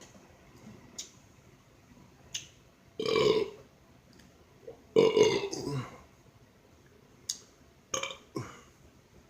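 A man burping loudly twice, a short burp about three seconds in and a longer one about five seconds in, brought up by gulping carbonated ginger ale. A few short clicks in between.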